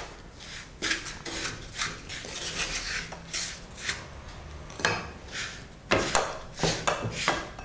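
Wooden spatula scraping and stirring powdered sugar into roasted mawa in a pan: repeated rasping strokes, with a few louder knocks in the second half.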